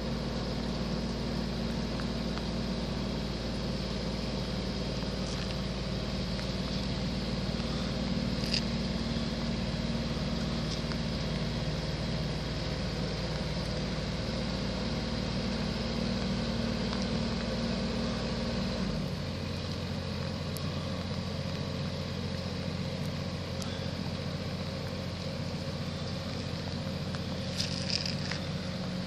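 Steady drone of idling diesel engines. About 19 seconds in, the deepest part of the drone drops away and a lighter hum carries on.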